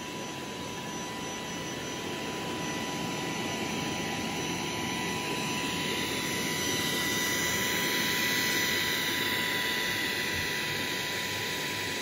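Samsung Jet Bot AI+ robot vacuum cleaning carpet: its suction fan gives a steady high whine over a hiss of suction. It slowly grows louder to a peak about two-thirds of the way through, then eases off a little.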